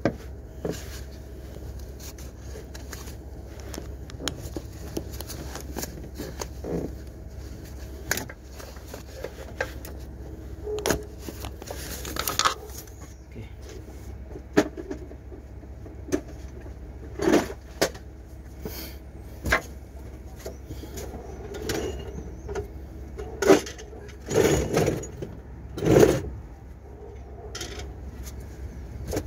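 Scattered metallic clicks, clinks and knocks of hand tools and parts being handled in a car's engine bay, with a few louder clatters in the second half, over a steady low hum.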